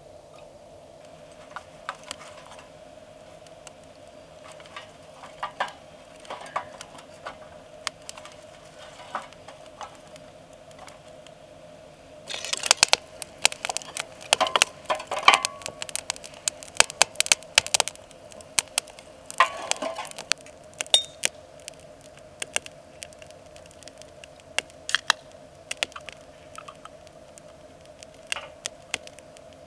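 Split firewood and kindling crackling and popping as they burn in a small metal fire stand: scattered snaps at first, then a dense run of crackles from about twelve seconds in. A faint steady hum runs underneath.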